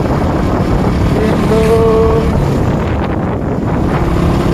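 Wind rushing over the microphone and motorcycle engine noise on a highway ride, a steady loud rumble. A short held tone rises out of it about a second and a half in.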